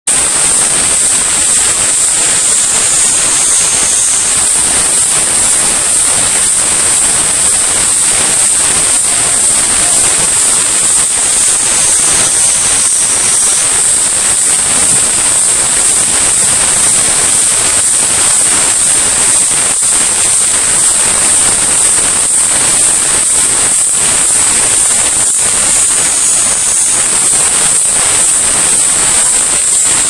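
Cicadas singing: a loud, steady, high-pitched buzzing drone with no breaks, its tone shifting slightly three times.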